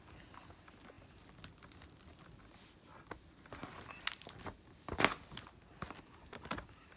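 Slime being kneaded and squished by hand: quiet at first, then a run of sticky clicks and small pops about halfway through, the loudest a sharp snap just after the five-second mark.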